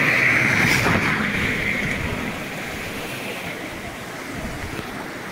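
Creek in flood after heavy rain: fast, muddy water rushing steadily, loudest in the first couple of seconds and then easing off.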